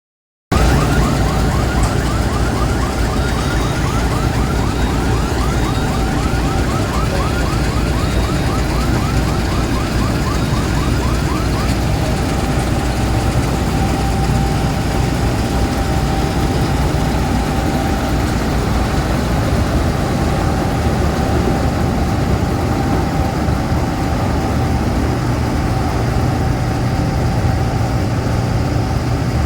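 Combine harvester engine running steadily at a constant speed. For the first twelve seconds or so, a rapidly repeating electronic warbling alarm chirps over it, about three chirps a second.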